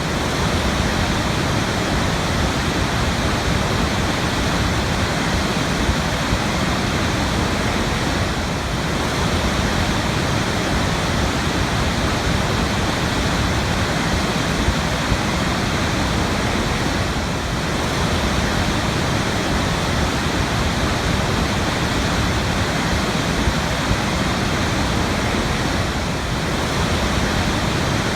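Waterfall: a steady, dense rush of falling water, dipping slightly in level about every nine seconds.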